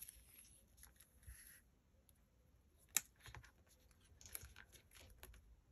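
Faint rustles and small clicks of paper crafting: paper cut-outs handled and pressed down on the board beside a plastic glue bottle, with one sharper click about three seconds in.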